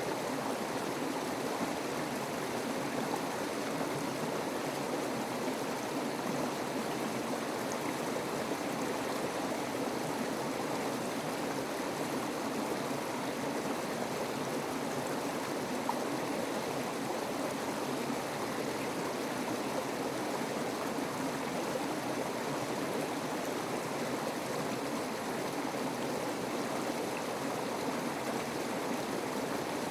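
Steady rush of flowing water, like a stream, with no change in level.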